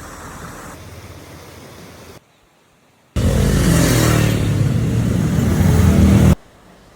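A vehicle's engine or motor running, loud and steady for about three seconds, starting and stopping abruptly, after a quieter stretch of noise and a short silence.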